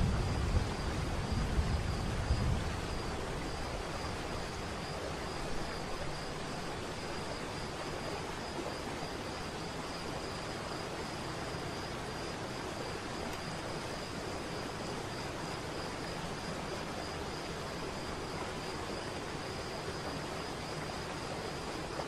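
Waterfall: a steady rush of falling water, with a high insect trill running through it. A deep low rumble at the start fades away over the first few seconds.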